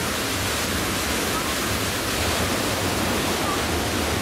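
Steady rushing water, like a waterfall or fast mountain stream, running at an even level.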